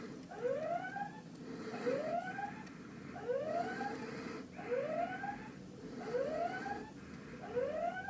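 A Tweety smart bird feeder's built-in squirrel siren sounding, set off by a squirrel at the feeder. It gives a short rising electronic whoop about every one and a half seconds, six in all.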